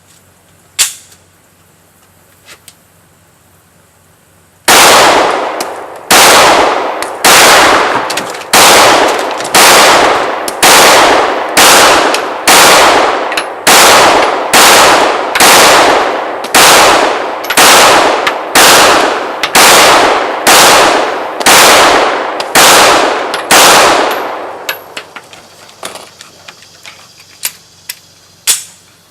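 Springfield XDm 9mm pistol fired in a steady slow string of about twenty shots, roughly one a second, from about five seconds in until near the end. A few light clicks of gun handling come before and after the string.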